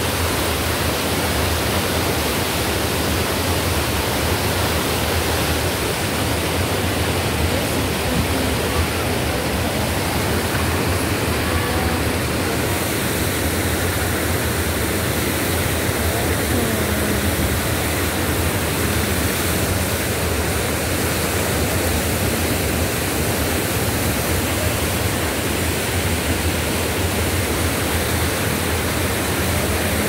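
A waterfall and the whitewater creek below it pouring over rocks: a steady rush of water with no breaks.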